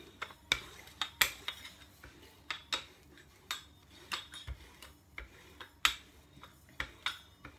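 Rolling pin clicking and knocking as it is rolled back and forth over dough on a stone counter, in irregular sharp clacks about two a second.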